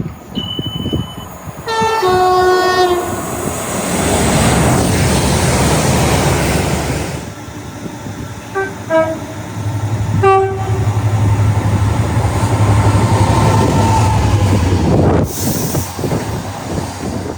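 Train horn blasts: a two-note blast, high then low, then a few short toots, with trains passing at speed in a loud rush of wheel and rail noise and, later, a steady low drone that cuts off suddenly.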